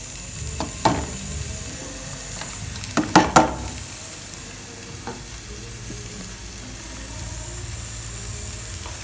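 Chopped scallion and sweet pepper sizzling and frying in hot oil in a pot as they are sautéed, a steady sizzle with a few sharp knocks about a second in and again around three seconds in.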